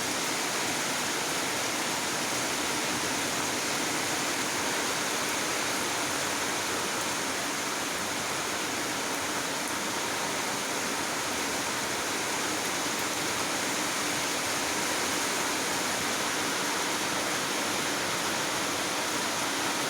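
Rain falling steadily, an even hiss that does not change or break.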